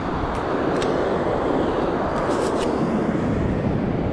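Steady rush of surf on the shore, with wind on the microphone and a few faint clicks.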